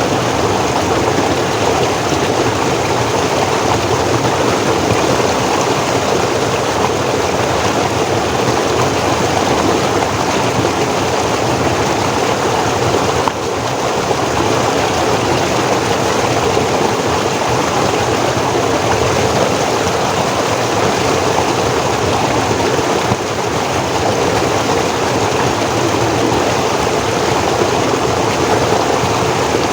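Forest stream flowing steadily, a constant rush of water over rocks. The level dips slightly for a moment twice.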